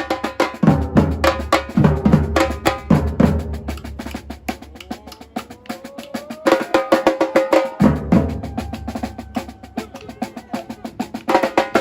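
Batucada drum ensemble playing: fast snare and wood-block strikes over deep bass-drum hits. About four seconds in the bass drops out and a rising tone climbs for a couple of seconds, then the full group comes back in.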